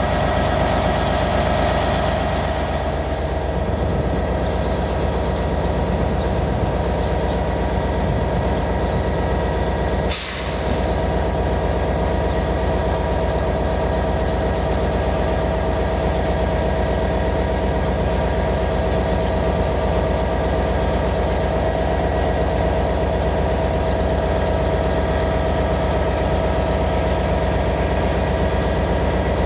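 British Rail Class 158 diesel multiple unit's underfloor diesel engines running: a steady drone with a constant whine. It breaks off briefly about ten seconds in.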